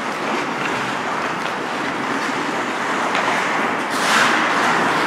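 Hockey skates carving and scraping on rink ice: a steady hiss with a few faint clicks, and a louder, brighter scrape about four seconds in.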